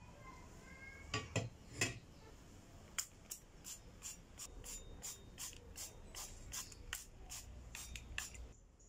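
A rusty iron spatula is set down on an aluminium tray with a few sharp clanks. Then a small pump spray bottle of coconut oil is squirted over it again and again in short hissing puffs, about four a second.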